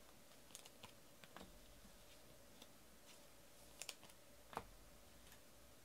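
Faint, scattered clicks and taps of trading cards being handled and set down on a table, the clearest two a little past halfway.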